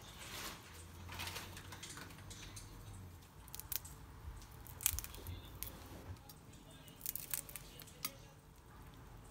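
Fingers peeling the shell and head off a raw shrimp: faint crackling and tearing of the shell, with scattered small clicks.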